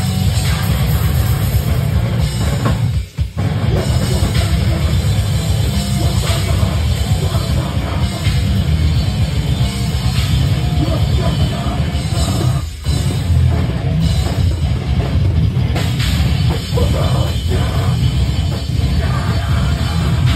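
A live heavy metal band playing loud, with drum kit and electric guitar through the stage PA. The sound drops out briefly twice, about three seconds in and again about thirteen seconds in.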